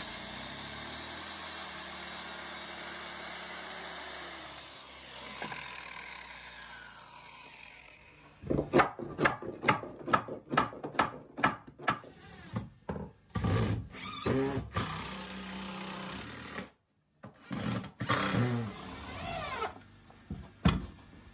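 DeWalt corded circular saw cutting through a pallet board, running steadily for about five seconds and then winding down. After that, a run of short, irregular knocks.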